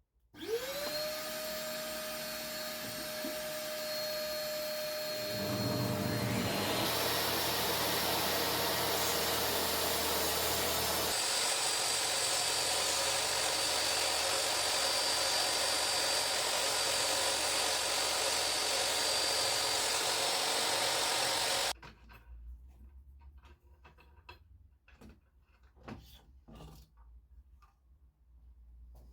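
Electric power tool motor starting with a rising whine that levels off, then running steadily and getting louder and noisier twice as it works, before stopping suddenly about 22 seconds in. Faint clicks and handling sounds follow.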